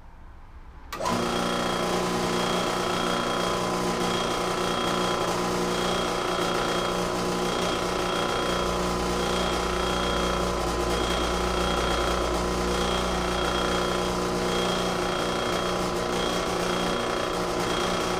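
Drill press running steadily while a Forstner bit bores into a rubber hockey puck; the machine comes on suddenly about a second in.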